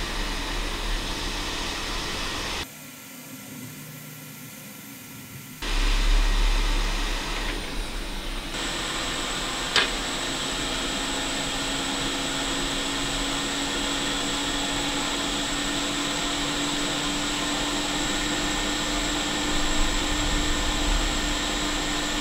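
Hot-air heat gun blowing steadily while a small chip is reflowed onto a circuit board. The airflow drops to a softer hiss for about three seconds a few seconds in, and there is a single short click about ten seconds in.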